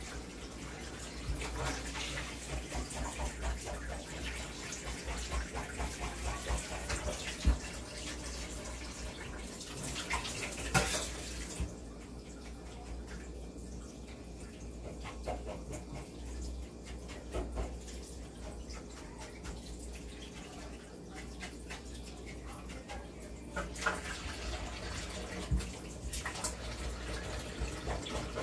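Kitchen tap running into a stainless-steel sink while a fish is cleaned under it, with small knocks and scrapes of hands and knife. The water stops for about twelve seconds in the middle, then runs again.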